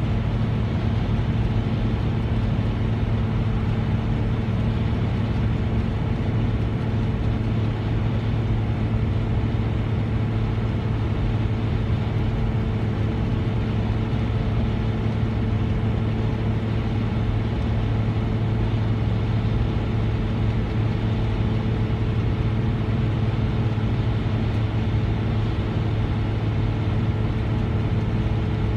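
Car cruising at steady highway speed, heard from inside the cabin: a constant low engine and road hum over tyre noise, unchanging throughout.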